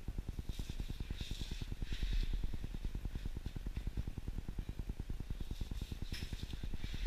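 Long knife slicing through a plastic-wrapped tuna loin, the plastic wrap crinkling and rasping in a few short bursts in the first couple of seconds and again near the end. Underneath runs a steady, fast, low pulsing hum.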